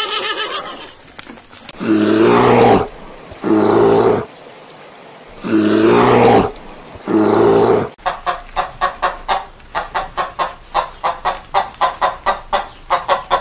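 A horse's whinny trails off at the start. It is followed by four loud, deep calls in two pairs from a brown bear. From about eight seconds in, a rooster clucks in a rapid run of short clucks, several a second.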